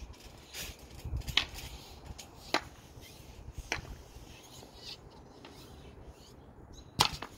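Hockey stick stickhandling on a trampoline mat: a handful of sharp clacks about a second apart, the loudest one near the end.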